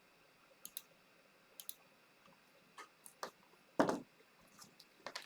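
Sparse light clicks and taps of small hard objects being handled on a repair bench, some in quick pairs, with one louder knock a little under four seconds in.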